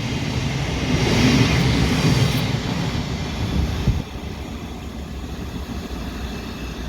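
Thameslink Class 700 electric train passing through the station, a steady rumble that drops off sharply about four seconds in as it clears.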